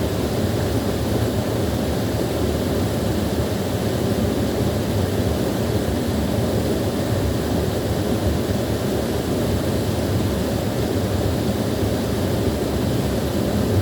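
Small waterfall pouring steadily: an even, unbroken rush of falling water, heaviest in the low range.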